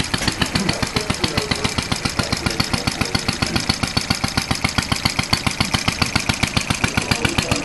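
Briggs & Stratton Model Y single-cylinder engine running at a steady speed, with an even, rapid beat of firing strokes.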